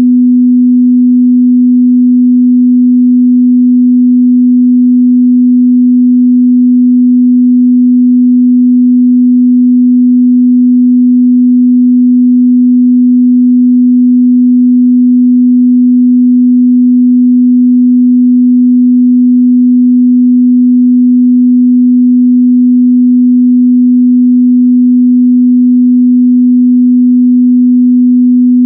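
A steady, loud 248 Hz sine-wave test tone, a single pure hum in the mid-bass that is held without change.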